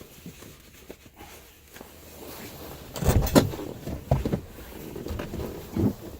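Getting out of a car: knocks and thumps of the car door, loudest in a quick pair about three seconds in, with a few lighter thumps and steps after.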